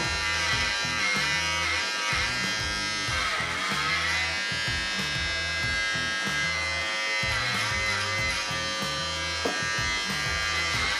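Corded electric dog clippers buzzing steadily as they are run through a West Highland White Terrier's long coat, with background music playing under them.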